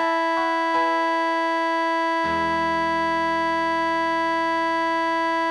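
Synthesized keyboard playback of a choral hymn arrangement reaching its ending: a few short moving notes in the first second, then a full final chord, joined by a low bass note about two seconds in, held steady without fading.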